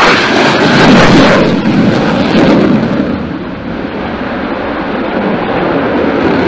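Jet aircraft noise: a loud, rushing engine sound, loudest in the first couple of seconds and then easing to a steadier level.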